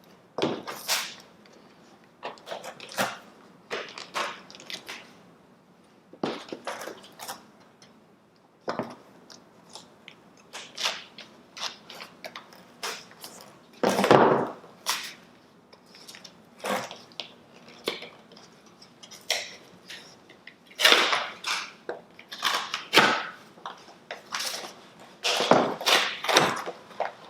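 Cardboard and plastic packaging being handled and opened: irregular crinkling, rustling and light knocks, louder about halfway through and again near the end.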